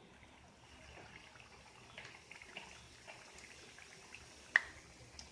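Egg puff pastries frying in hot oil in a pan: faint crackling with scattered small pops, and one sharp click about four and a half seconds in.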